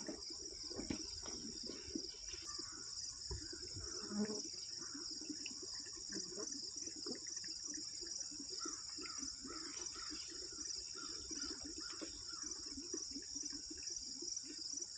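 Steady high-pitched chorus of field insects trilling without pause, with faint soft rustling and scuffing underneath.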